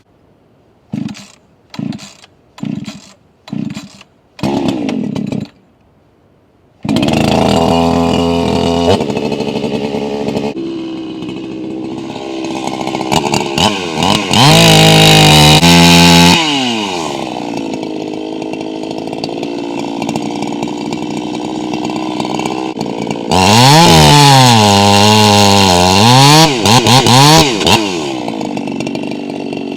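Modified Echo CS-4910 two-stroke chainsaw being pull-started: five short bursts as the cord is pulled and the engine sputters, then it catches about seven seconds in and runs. It idles and is revved up and down to full throttle several times.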